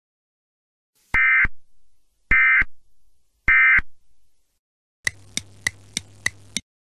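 Emergency Alert System end-of-message data tones: three short buzzy bursts about a second apart. Near the end a clock ticks six times, about three ticks a second.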